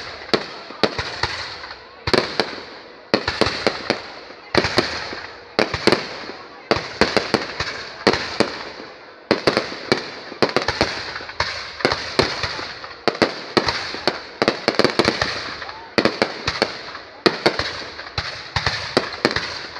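Fireworks going off in a long run of sharp cracks and pops, clustered in bursts about every second or so, each burst trailing off in hissing crackle.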